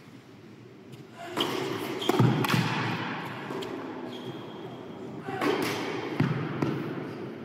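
Tennis balls struck by rackets and bouncing on an indoor hard court during a practice rally: several sharp hits about a second apart, ringing in a large hall, over the chatter of onlookers.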